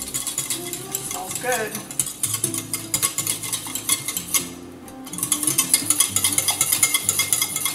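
Wire whisk beating a glaze in a stainless steel saucepan to melt the butter into it: fast, continuous ticking and scraping of the wires against the pan, easing off briefly a little past halfway, then picking up faster and louder.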